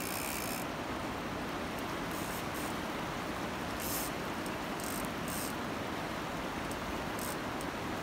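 Steady rush of river water, with a few brief hissing bursts on top.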